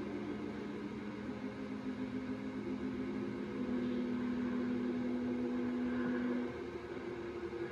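Held musical chords of steady, sustained notes, played back from an old videotape through a computer speaker with a haze of hiss. The chord shifts about three and a half seconds in and breaks off a little after six seconds.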